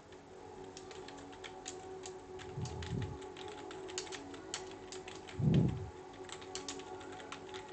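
Typing on a computer keyboard: a quick, uneven run of key clicks. Two low muffled thumps come through it, the louder about five and a half seconds in.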